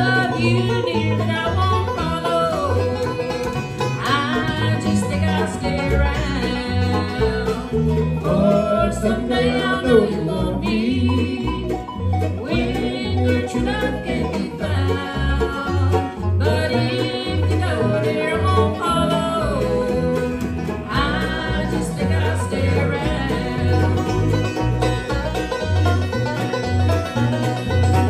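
Live bluegrass band playing: banjo, upright bass, acoustic guitar and mandolin, with voices singing over a steady bass beat.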